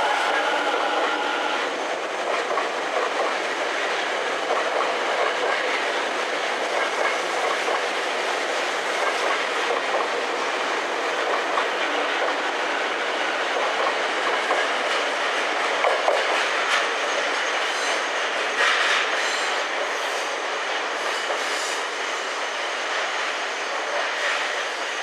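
Tokyo Metro 10000 series electric train running along a station platform: steady wheel-on-rail rumble with clicks over rail joints. A brief high wheel squeal comes about two-thirds of the way through.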